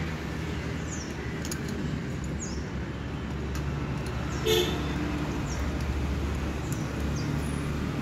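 Steady low rumble of background road traffic, with a short horn-like toot about four and a half seconds in.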